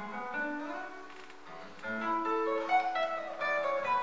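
Solo classical guitar played fingerstyle: a passage of single plucked notes ringing over one another, quieter for a moment and then louder again about two seconds in.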